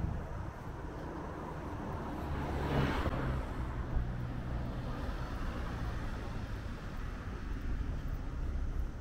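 A car driving past on the street, getting louder to a peak about three seconds in and then fading into a steady low traffic rumble.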